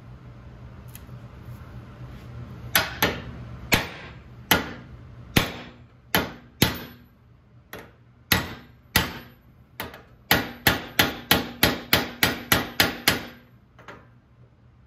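A steel hammer strikes a 3/8-to-1/2-inch socket adapter set in the handlebar clamp of a 1968 Triumph T120R top triple clamp, driving the old bushing out. There are about twenty sharp, ringing metal blows. They come at an uneven pace at first, then fall into a quick run of about four a second near the end.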